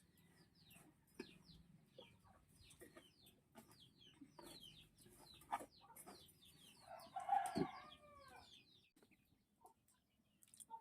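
Faint, repeated high peeping of newly hatched chicks, with a chicken calling once about seven seconds in. A few light knocks are heard in between.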